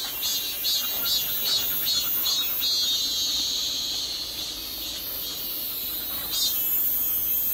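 Chorus of insects buzzing high-pitched, pulsing about three times a second for the first two and a half seconds, then holding a steady drone.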